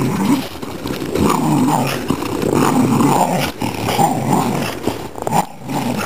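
Dogs growling continuously in play while tugging on a branch between them, the growl wavering in pitch and dropping out briefly about five and a half seconds in.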